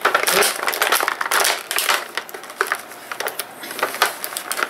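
Stiff clear plastic blister packaging crackling and crinkling as it is pried open by hand. The crackle is dense for the first two seconds, then breaks into scattered clicks and snaps.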